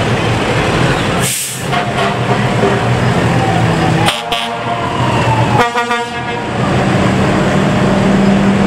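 Diesel fire engines rolling past with their engines running steadily, a short hiss of air about a second and a half in, and two short air-horn toots around four and six seconds in.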